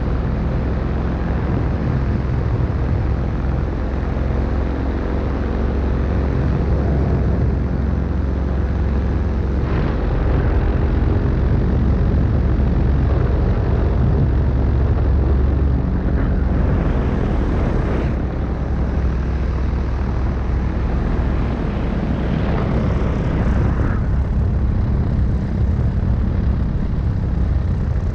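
Small propeller aircraft's engine running steadily in flight, with wind rushing over the microphone and swelling a few times.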